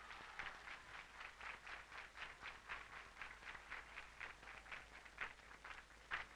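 Faint crowd applause: a quick, fairly even run of hand claps, about four a second.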